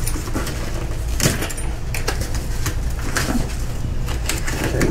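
Cardboard box and plastic packaging being handled and torn open as a new floor jack is pulled out: a string of short crinkles, scrapes and knocks over a steady low hum.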